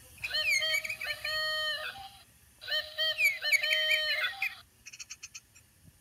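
Motion-activated plastic toy bird playing recorded birdsong through its small speaker, two bursts of chirping about two seconds each. A quick run of faint clicks follows near the end.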